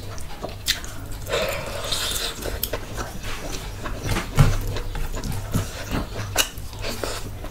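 Close-miked eating sounds: wet chewing and lip smacks, with a short breathy exhale about a second in.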